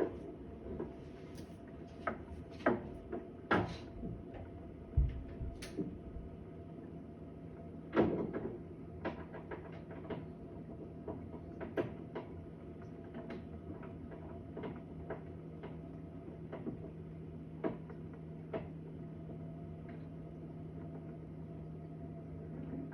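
Irregular knocks and bangs, like cupboard doors or doors shutting, heard through the walls of a bathroom, which the resident takes to come from a neighbouring flat. A cluster of sharper knocks comes in the first few seconds, a heavier bang about eight seconds in, then fainter scattered clicks. A steady low hum sets in about six seconds in.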